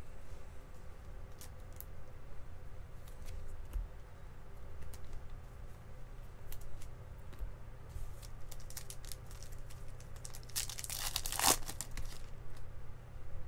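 A trading card pack wrapper torn open about ten seconds in: one loud rip lasting about a second. Light clicks and rustles of cards being handled come before it.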